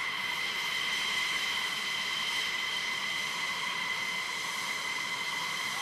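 F-15E Strike Eagle's jet engines idling on the ground: a steady high-pitched whine over a constant hiss.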